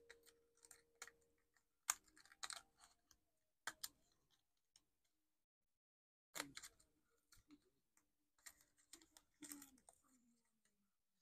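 Faint, scattered crackles and small clicks of thin die-cut card being flexed and peeled as the cut flower pieces are worked free, with a short silent pause about halfway through.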